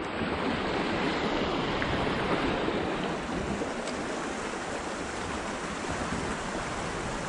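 Shallow river running steadily over rocks in a small riffle, a constant rush of water.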